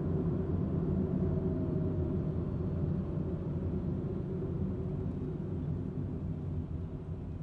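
Steady low road and engine rumble of a car being driven, heard from inside the cabin, growing quieter over the last couple of seconds.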